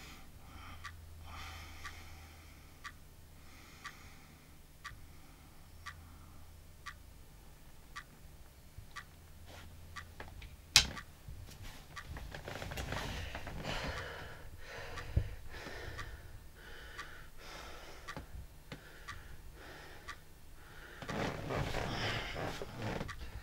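Clock ticking about once a second, then one much louder sharp click about eleven seconds in. After it a man breathes heavily and unevenly, in and out, over the ticking, loudest near the end.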